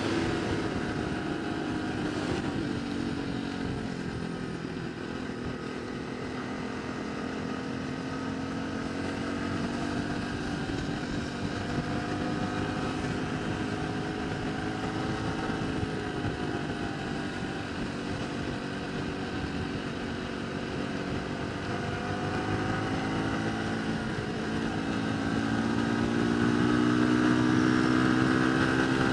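A vehicle engine running on the move, its pitch sinking and climbing several times as the speed changes, loudest near the end.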